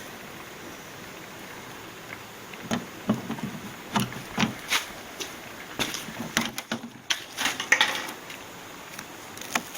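Irregular clicks, taps and clunks of hands and tools working on the opened oxygen concentrator's plastic and metal parts during disassembly, over a steady faint hiss.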